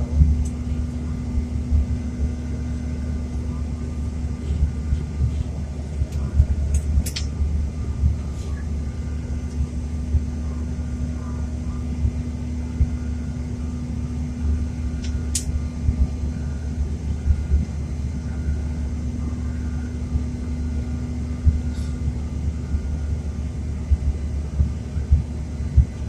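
Airliner cabin noise in flight: the steady drone of the jet engines and airflow, with a constant low hum and an uneven low rumble underneath.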